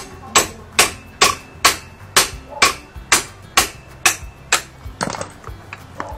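Steady hammer strikes, about two a second, stopping about five seconds in and followed by a few lighter clicks and knocks.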